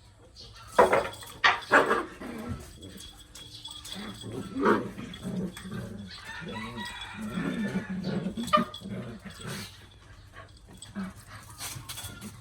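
Puppies play-fighting over a toy: a few sharp yaps about a second in, then a long stretch of low growling with another yap near the end of it.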